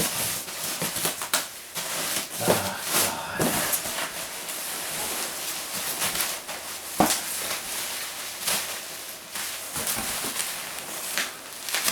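Foam packing peanuts rustling and crackling as hands dig through a box full of them, with scattered sharp clicks and knocks.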